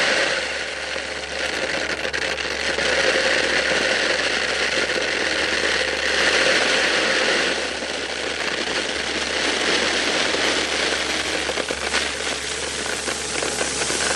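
Gravel pouring out of a machine's bucket into a drain trench: a continuous rattle of stones sliding and landing, heaviest in the first half. The machine's engine runs steadily underneath.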